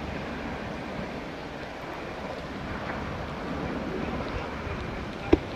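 Steady rushing noise of wind on the microphone under a UH-60 Black Hawk helicopter flying overhead, with a single sharp click near the end.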